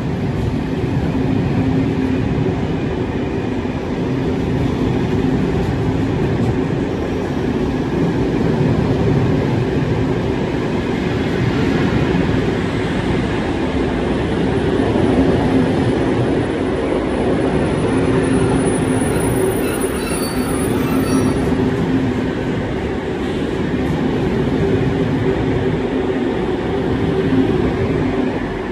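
Graffiti-covered SNCB passenger train rolling out past the platform: a steady rumble of coaches and wheels on the track with a low hum. About twenty seconds in there are brief faint high wheel squeals.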